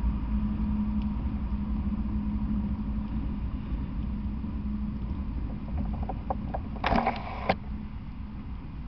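Freight train of autorack cars rolling past: a steady low rumble with a hum, and a brief burst of metallic clatter about seven seconds in.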